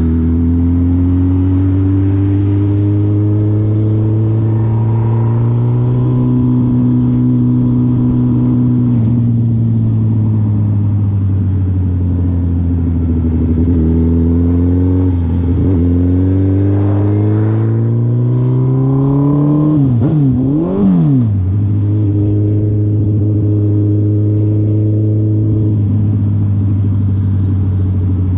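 2020 Suzuki Hayabusa's 1340 cc inline-four engine running under way, its pitch repeatedly rising as it accelerates and dropping at gear changes and off the throttle. About twenty seconds in the revs dip and rise quickly a couple of times.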